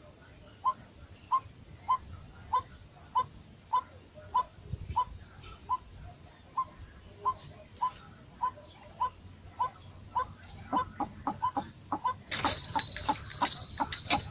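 A bird giving one short call over and over, about every half second, getting quicker near the end. About twelve seconds in, a louder, busier sound joins: rapid clicks over a steady high ringing tone.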